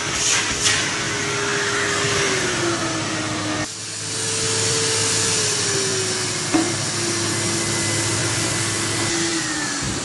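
Numatic Henry cylinder vacuum cleaner running, its motor whine slowly sagging in pitch. A little over a third of the way in, the sound dips for a moment and comes straight back up. There is a single click about two-thirds in, and right at the end the motor starts to wind down.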